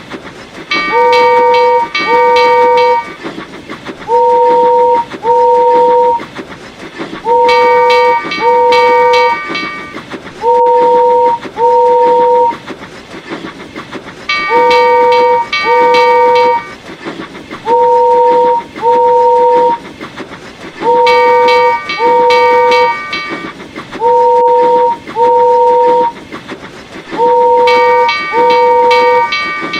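A simple looped electronic tune of short held beeping notes in pairs, with a fuller chord sounding over every other pair, repeating about every seven seconds.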